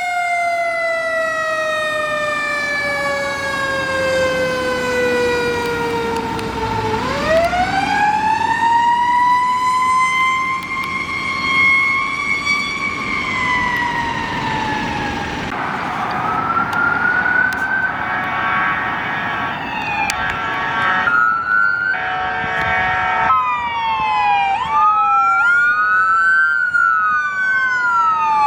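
Fire engine siren wailing in long, slow falls and rises. About two-thirds of the way in, two blasts of an air horn sound over it. Near the end the siren switches to faster, repeating rise-and-fall cycles.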